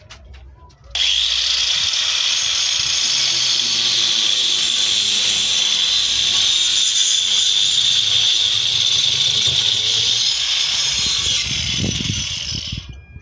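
Electric power tool working wood: a loud, steady hissing run that starts abruptly about a second in and winds down near the end.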